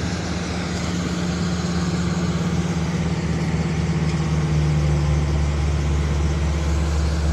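Engine running steadily, its note dropping a little and growing heavier about four and a half seconds in, as under added load.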